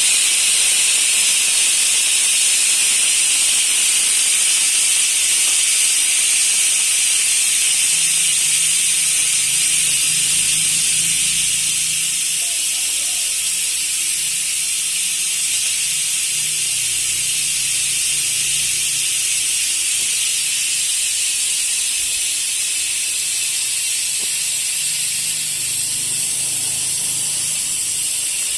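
A steady, loud hiss of rushing air, with a faint low hum joining about eight seconds in.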